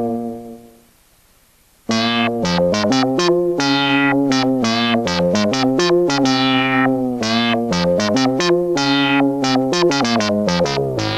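ARP Odyssey Mark I synthesizer playing a bass patch with pitch modulation and pitch bend. A held note fades out in the first second. After a short pause, about two seconds in, a fast run of short bass notes starts, each bright at the start and quickly dulling, their pitch wavering.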